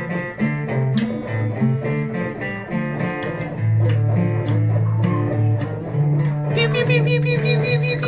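Guitar music: plucked guitar notes over a line of held low notes, with a higher held note coming in near the end.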